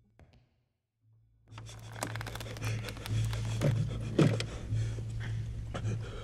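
Near silence for about a second, then a steady low hum and rustling, with heavy gasping breaths from a badly beaten man, the strongest twice near the middle.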